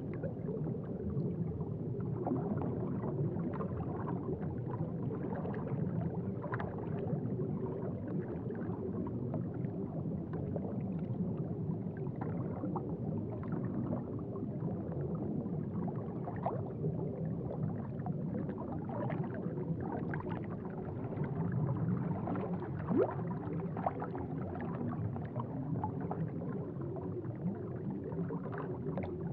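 Aquarium water bubbling and gurgling: a low, steady gurgle with frequent small bubble pops.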